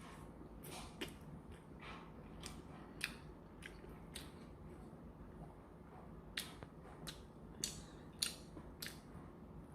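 A person chewing food close to the microphone, with a dozen or so short, wet mouth clicks and smacks at irregular moments.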